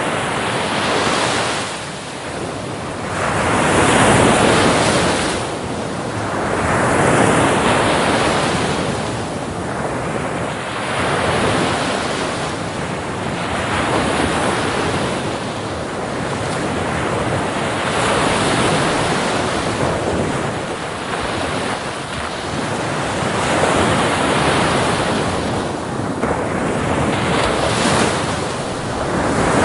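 Small waves breaking and washing up on the shore, one surge of water swelling and fading roughly every three seconds.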